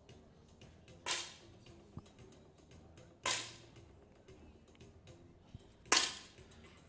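Three 10 m air rifle shots going off on the range, each a sharp pop with a brief echo dying away, about a second, three seconds and six seconds in.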